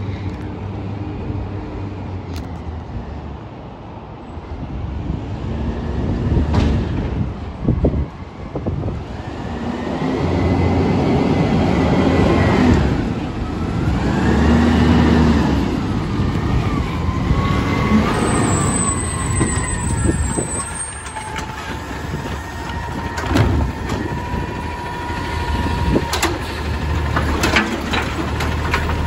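Automated side-loader recycling truck approaching and pulling up: its diesel engine swells and eases with whining tones that rise and fall, and a brief high squeal sounds about two-thirds of the way through. Near the end a steady whine runs under a few sharp clunks as the grabber arm works.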